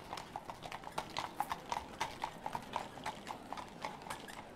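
Hoofbeats of several ridden horses moving over a dirt arena: an uneven run of sharp clip-clops, several a second.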